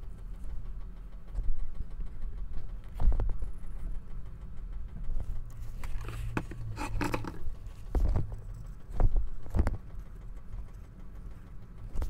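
Handling noises from a washing machine motor's plastic stator and a superglue tube: scattered knocks and taps, and a brief scrape about two-thirds of the way in, over a steady low hum.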